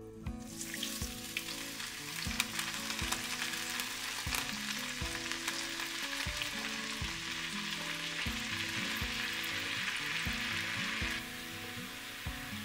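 Red wine poured into a hot cast-iron skillet with hamburg steak drippings, sizzling hard as it deglazes the pan. The sizzle eases to a softer simmer near the end.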